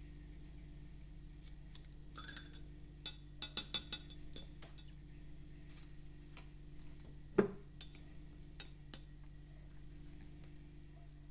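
A paintbrush clinking against a cup or the paint tin as it is rinsed and tapped off: a quick cluster of light, ringing clinks about two seconds in, then a dull knock and a few more clinks.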